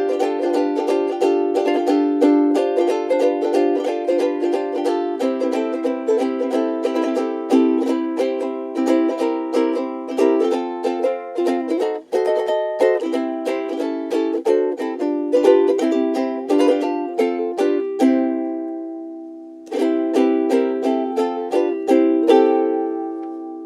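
Frayns FRUK-3MS soprano ukulele, solid Honduras mahogany with an ebony fingerboard, played in a quick run of chords and notes. About three-quarters of the way through a chord is left to ring for a moment, and near the end a last chord rings out and fades.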